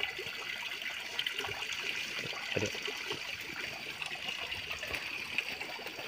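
Water trickling steadily into a fish pond.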